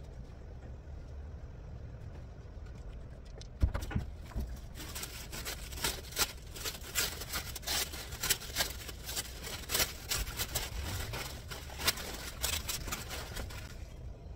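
Quilted furniture moving blankets and a woven sack being handled and tossed into an empty cargo van: a knock about four seconds in, then a long stretch of rustling and fabric thumps, over a low steady rumble.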